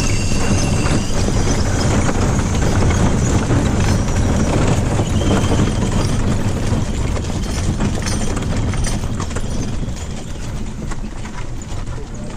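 A team of horses clip-clopping along a dirt road as they pull a stagecoach, over the low rumble and rattle of the moving coach. The sound eases a little about ten seconds in.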